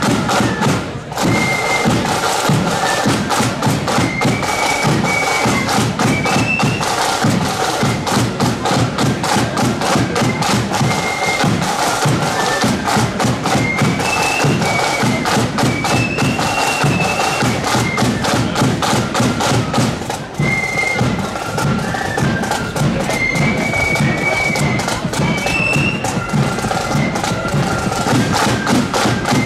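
Marching flute band playing a tune in a high register over a steady beat of bass and side drums.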